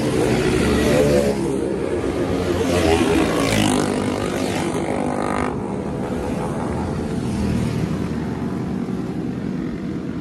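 Motorcycles riding past one after another, their engines rising and falling in pitch as they go by, loudest in the first few seconds.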